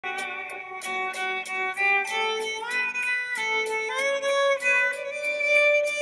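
Background music: a violin melody with notes that slide up into the next, over a light, steady ticking beat.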